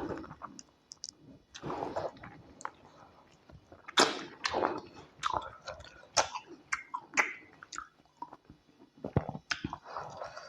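Close-miked chewing of tilapia pepper soup and white starch: irregular wet mouth sounds with sharp smacks and clicks.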